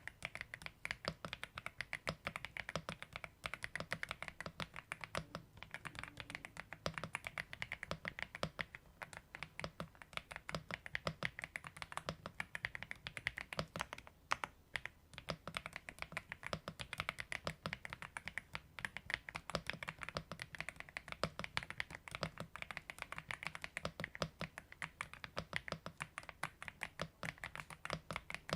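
Continuous fast typing on an AULA F75 mechanical keyboard: a dense stream of key clicks, with a short pause about halfway through.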